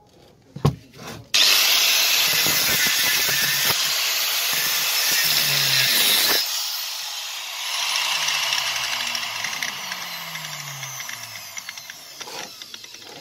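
Angle grinder with an abrasive cut-off disc cutting into the rusted metal chuck of a drill: a knock, then the grinder starts abruptly and grinds steadily for about five seconds. It is then lifted off and winds down, its pitch slowly falling.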